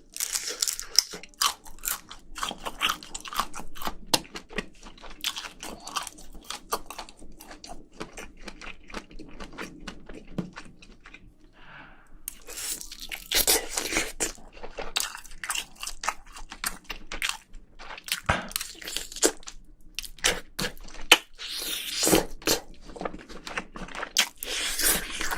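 A person chewing and crunching mouthfuls of spicy braised seafood. The crisp crunches come in dense clusters in the middle and again near the end.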